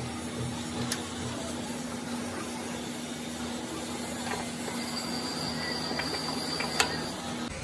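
Steady machine hum, with a few light metallic clicks from hand work on a diesel engine's fuel injection pump fittings. The sharpest click comes near the end.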